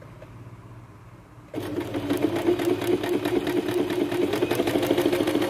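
Sewing machine stitching a seam. It is quiet for the first second and a half, then the machine starts suddenly and runs at a steady, fast stitching pace.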